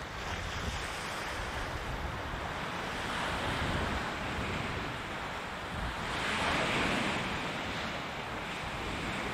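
Sea waves washing onto the shore, swelling twice, about three and about six seconds in, with wind rumbling on the microphone.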